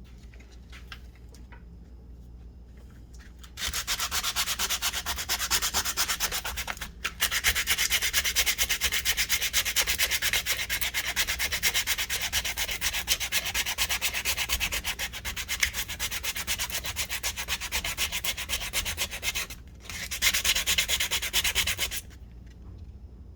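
Sanding a vintage hand brace, a dense, even scratching that starts loudly a few seconds in, breaks off briefly twice, then stops near the end.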